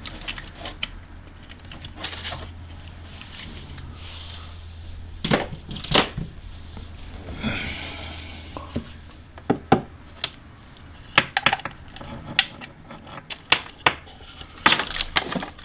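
Hands handling a plastic camcorder battery charger and its batteries: scattered plastic clicks and knocks, with a brief scrape about eight seconds in and a faint low hum through the first half.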